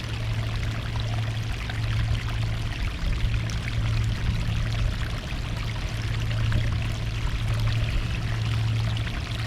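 Sea water washing and trickling over a rocky shore: a continuous rushing noise with a steady low hum underneath.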